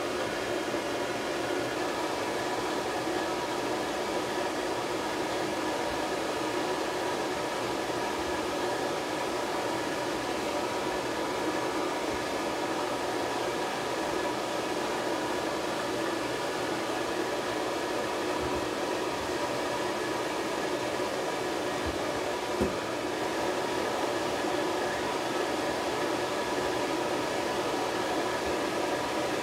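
Pet grooming dryer blowing air steadily onto a puppy's wet coat: an unbroken hiss of air with a constant motor hum. One soft knock about two-thirds of the way through.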